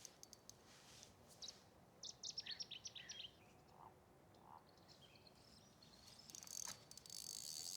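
Quiet outdoor ambience with a bird giving a quick run of short high chirps about two seconds in, a few faint clicks, and a louder high rustling hiss near the end.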